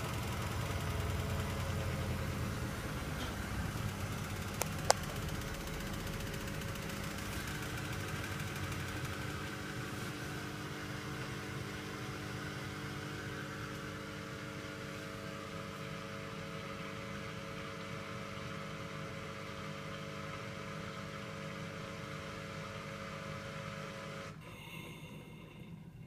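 Hoover DYN 9164 DBFX washing machine winding down at the end of its cycle: a low drum rumble fades over the first several seconds, leaving a steady motor whine that cuts off suddenly about two seconds before the end as the cycle finishes. Two sharp clicks about five seconds in.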